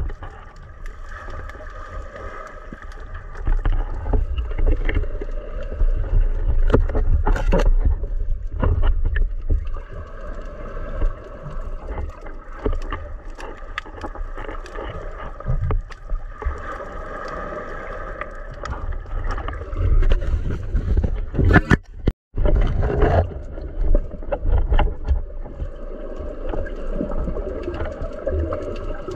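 Underwater sound picked up by a diver's action camera: a steady low rumble of moving water with a droning hum, broken by scattered clicks and knocks. The sound cuts out for a moment about two-thirds of the way through.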